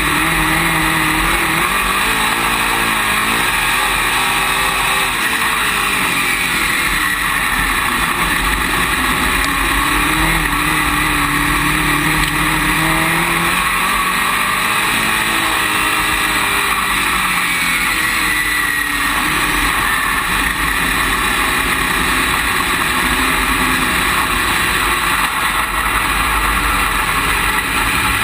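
Dirt late model race car's V8 engine heard from inside the cockpit while running laps at speed, its pitch rising and falling again and again as the throttle is worked through the straights and turns.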